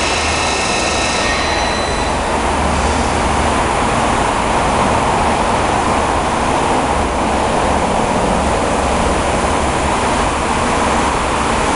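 Zayer KF3000 CNC bed mill running with its table traversing along the bed: a loud, steady mechanical running noise. A high whine fades out about two seconds in.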